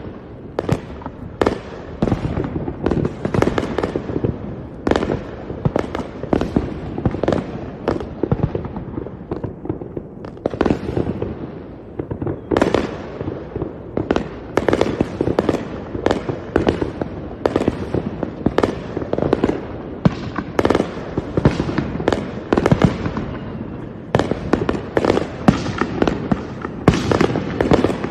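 Fireworks going off in a dense, continuous barrage: sharp bangs several times a second, each followed by a rumbling echo that runs into the next, with the loudest cracks coming near the end.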